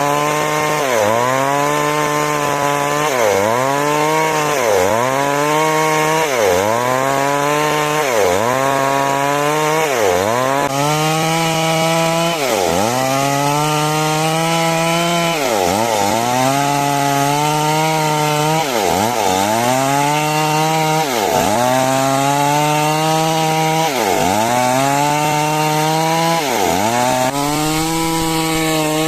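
Two-stroke chainsaw cutting timber lengthwise into rafters, running at high revs with the engine pitch dropping and recovering about every one and a half seconds as the cut loads it.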